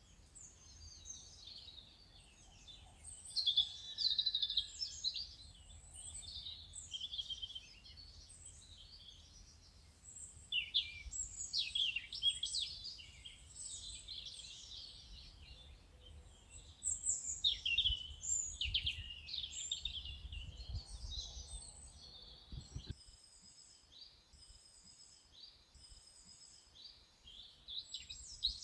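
A chorus of small songbirds chirping and warbling in quick, overlapping phrases. Under them a low, steady rumble cuts off abruptly about three-quarters of the way through.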